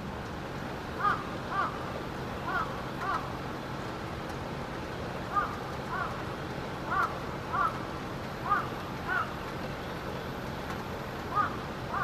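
A crow cawing, repeated calls in twos about half a second apart, with a pause of a second or more between pairs, over a steady background hiss.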